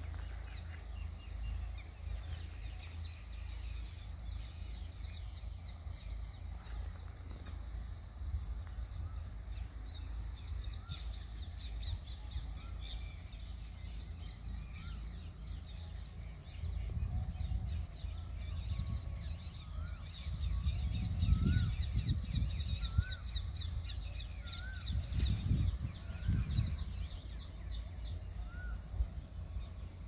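Birds calling in open farmland: a short rising-and-falling note repeated about every second and a half through the second half, over a steady high insect hiss. A low rumble on the microphone swells twice in the second half.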